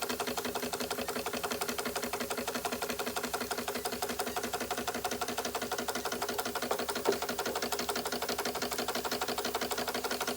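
Doll & Co 348/7 toy steam engine running under steam, its mechanism clattering in a rapid, even beat. There is one sharper click about seven seconds in.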